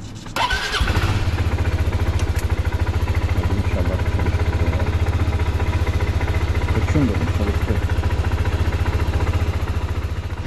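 Suzuki Burgman 400 scooter's single-cylinder engine starting up about half a second in, then idling steadily with a fast, even pulse.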